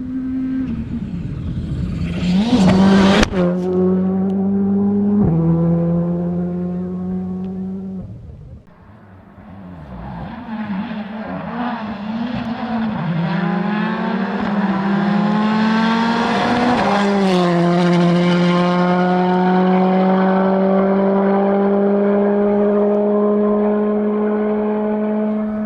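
Rally car engines at full throttle. A car revs hard and shifts up twice, the pitch dropping at each change, then fades. Another car approaches, rising in pitch, shifts up and holds a high steady note as it accelerates.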